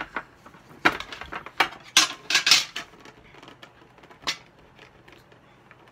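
Metal Pokémon Hidden Fates collector's tin being pried open and its lid handled: a run of sharp metallic clacks and rattles, the loudest about two seconds in, then a single knock about four seconds in and lighter clicks after it.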